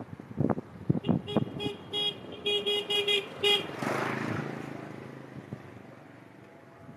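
A vehicle horn beeping in a quick run of about eight short toots, followed by a rush of noise that swells and then fades away over about three seconds.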